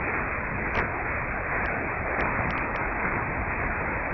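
Longwave AM reception of DR's 243 kHz transmitter with no programme on the carrier: steady static hiss, with a handful of faint crackle clicks in the first three seconds.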